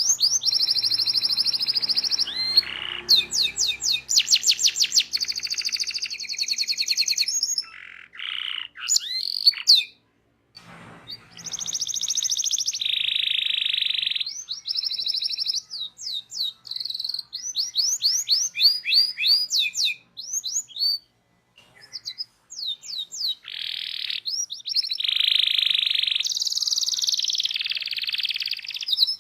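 Local canary (kenari lokal) singing a long rolling song of rapid high trills of repeated notes, quick glides and held buzzing notes, with short pauses about ten seconds and twenty-one seconds in.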